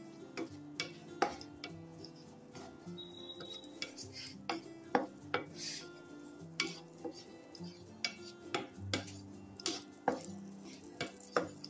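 A spoon stirring raisins roasting in ghee in a pan, clinking and scraping against the metal in irregular strokes, one or two a second. Faint background music runs underneath.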